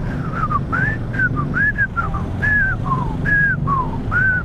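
A person whistling a tune of about a dozen short notes, some rising and falling within the note, over the low steady running of a motorcycle engine.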